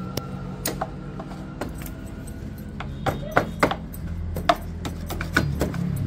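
Irregular knocks and taps as the kick-start side cover is pushed and seated back onto the TVS Ntorq scooter's engine case, over steady background music.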